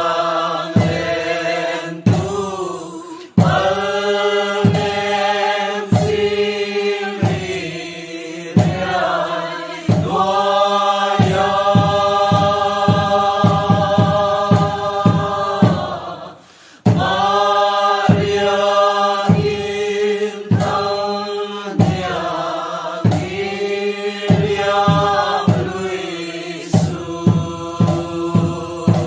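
Mizo Chheihlam song: voices singing a chant-like tune over a steady beat, with a short break about 16 seconds in.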